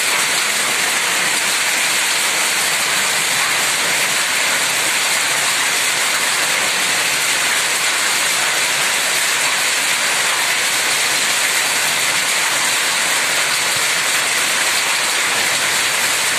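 Hailstorm: hail and heavy rain pelting down, a steady, dense hiss that does not change.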